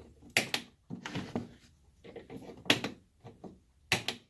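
A handful of sharp, irregular clicks and knocks: a quick double click, then three more single ones spread over a few seconds.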